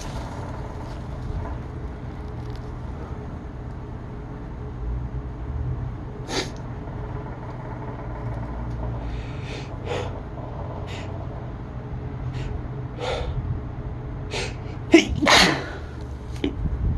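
A sneezing fit: a string of short, sharp sneezes spaced a second or more apart, the loudest a close pair about fifteen seconds in, over a steady low hum.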